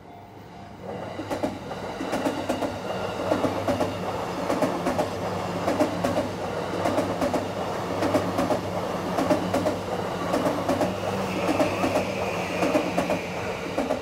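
JR East Yamanote Line E235-series electric train passing over a level crossing, its wheels clacking in a steady rhythm over the rail joints, under the level-crossing bell's steady ringing. The train comes in loud about a second in, and a higher steady whine joins near the end.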